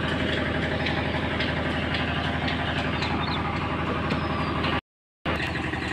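An engine idling steadily, a low even drone with a fast regular beat. The sound cuts out completely for about half a second near the end, then the same drone resumes.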